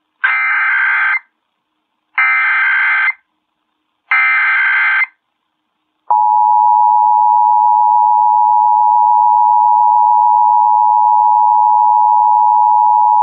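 Emergency Alert System test signal from a C.Crane CC Skywave radio. It starts with three short warbling bursts of SAME digital header data, each about a second long and about a second apart. Then comes the steady two-tone attention signal, beginning about six seconds in.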